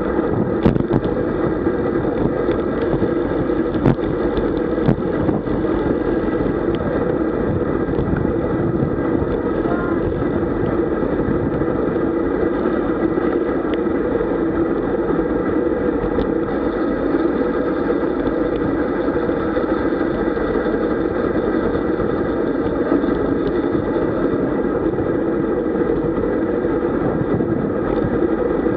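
Wind rush and road noise picked up by a bike-mounted action camera on a road bicycle at about 40–45 km/h: a steady, muffled rush with a few light clicks in the first few seconds.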